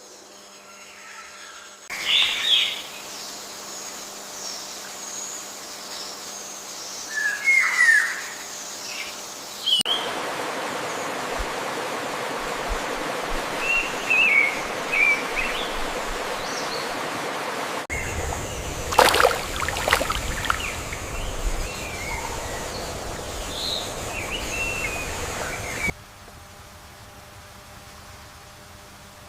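Forest ambience of short bird chirps and whistled calls over a steady background hiss, in stretches that cut in and out abruptly. A loud, sweeping call stands out about two-thirds of the way through.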